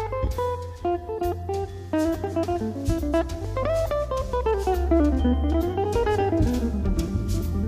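Background music: guitar playing a gliding melody over bass and a drum kit beat, in a jazzy style.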